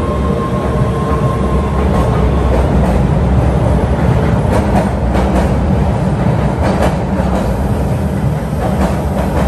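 MBTA Red Line subway train rolling by: a loud, steady heavy rumble, with a thin whine that fades out about two seconds in, and wheels clicking over rail joints from about halfway in.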